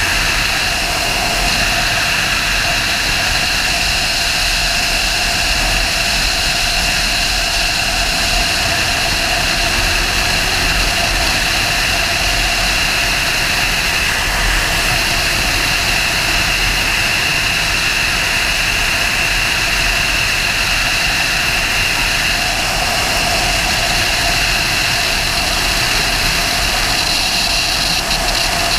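Sport motorcycle cruising at a steady speed: the engine runs evenly under a constant rush of wind noise, with no change in pace.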